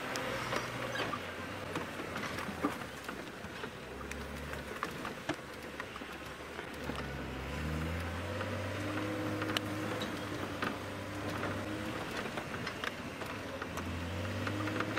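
Open safari vehicle's engine running as it is driven fast off-road, its pitch rising about halfway through as it revs up. Scattered knocks and rattles from the vehicle as it moves.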